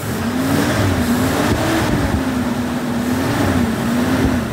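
1984 Ford Thunderbird's engine running cold and revved lightly by hand at the throttle linkage, its pitch rising and falling gently a few times above idle. It sounds sweet.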